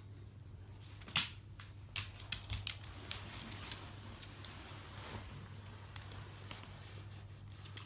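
A handful of sharp clicks and taps, loudest about a second in and in a quick cluster around two seconds, over a steady low hum.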